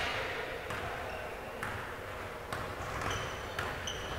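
A ball striking a hard indoor floor or wall about once a second, four times, mixed with short high squeaks of sneakers on a gym floor during an adball game.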